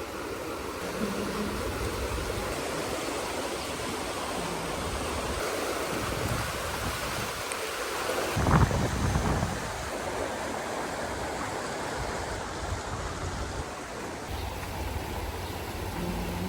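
Rushing water making a steady wash of noise, with a brief louder rumble a little past halfway.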